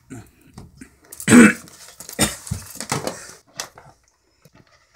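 A power plug pushed into a wall socket and the cord and portable DVD player handled, giving several sharp clicks and knocks. One loud short burst about a second and a half in is the loudest sound.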